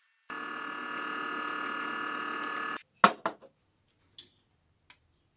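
A steady machine hum made of several held tones, which stops abruptly after about two and a half seconds. Then comes a loud metallic clank, with a few quick knocks after it and two lighter clicks near the end, as a square steel tube and a tape measure are handled on a wooden table.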